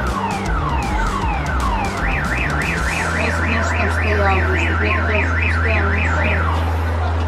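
Car alarm cycling through its tones: a repeated falling chirp, then from about two seconds in a fast high warble that stops shortly before the end, with a steady low hum underneath.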